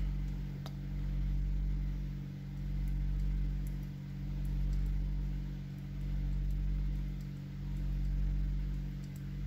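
Low electrical hum with a steady pitch, swelling and fading slowly about every second and a half to two seconds, heard while the Redell UV99 Plus walkie-talkie is keyed and transmitting.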